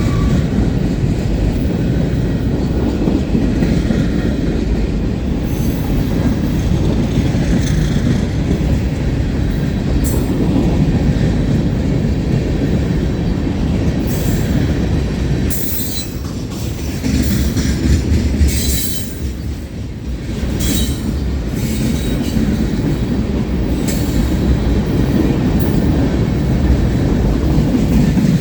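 Freight cars of a long CSX mixed freight train rolling past at close range: a loud steady rumble and clatter of steel wheels on the rails. Short high-pitched wheel squeals cut in now and then, most often past the middle.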